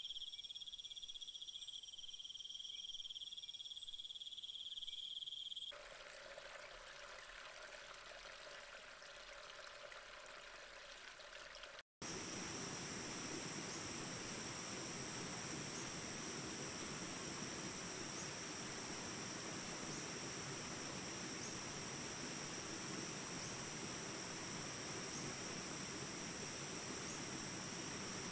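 Insect chorus with steady high-pitched trilling. It turns quieter and changes character about six seconds in, cuts out for a moment near twelve seconds, then comes back as a louder, denser chorus.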